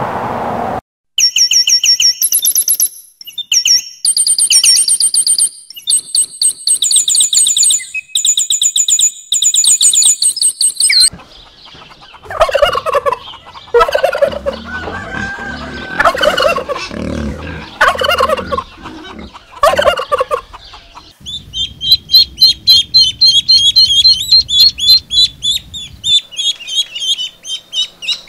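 A small bird's high chirps and trills for about the first ten seconds, then a domestic turkey gobbling again and again, then ducklings peeping in a quick, steady run of high calls through the last seven seconds.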